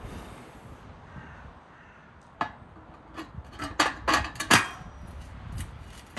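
Metal clinks and knocks of a samovar's chimney pipe being fitted onto its firebox: one click about two seconds in, then a quick cluster of clanks a second later, the loudest near the end of the cluster.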